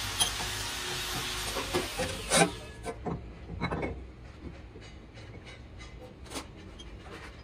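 Steady hiss of a large metal lathe that ends with a loud metal clunk about two and a half seconds in, followed by scattered clanks and clicks of steel parts as the tool post and slides are handled.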